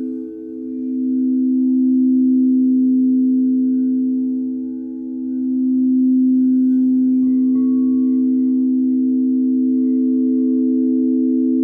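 Several singing bowls sounding together as one long sustained chord of three steady tones. The volume dips and swells back twice.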